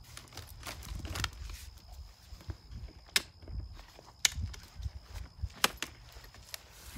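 Britax B-Ready stroller's seat latches and frame clicking as the lower seat is worked loose by hand: three sharp clicks about a second apart, with softer knocks and handling rumble around them.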